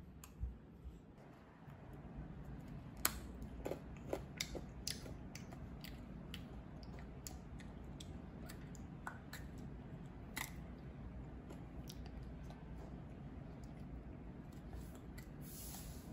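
A child licking and nibbling a dalgona sugar-toffee lollipop: scattered small, sharp mouth clicks and crunches, most frequent in the first half, over a steady low hum that comes in about two seconds in.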